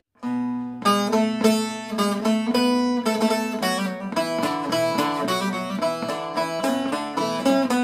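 Short-necked bağlama (kısa sap saz) played with a plectrum: a quick picked melody of many short notes, with lower notes ringing underneath, starting just after a brief silence.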